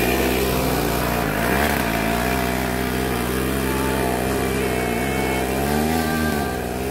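Yamaha SS110-based 110 cc scrambler motorcycle engine pulling under load as it climbs a steep dirt track slowly, its revs rising and falling.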